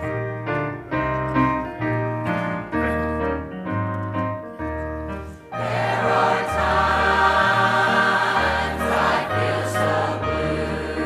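Church choir singing a hymn with piano accompaniment. The piano plays alone, with a stepping bass line, for the first half, and the choir comes in about halfway through.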